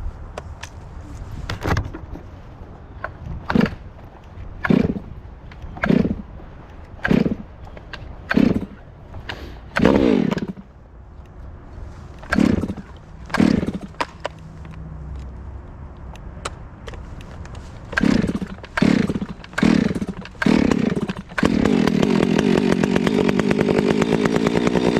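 Gas chainsaw idling and revved in short throttle blips, about one a second, with a pause in the middle. From about three-quarters of the way through it is held at steady high revs.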